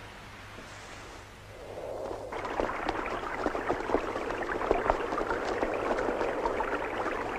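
A rushing, crackling noise fades in about two seconds in and carries on steadily, full of small crackles.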